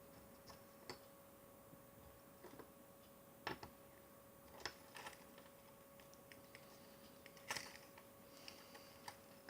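Faint, scattered clicks and light knocks of small objects being handled and set down, a few seconds apart, over a steady faint electrical hum.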